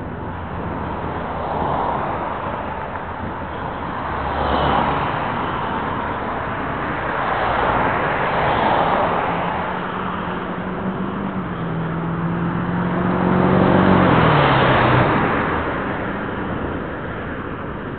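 Road traffic: cars passing one after another, each whoosh swelling and fading, the loudest about three-quarters of the way through, where one vehicle's engine hum drops in pitch as it goes by. Recorded through the small microphone of cheap camera sunglasses, so it sounds dull, with no high end.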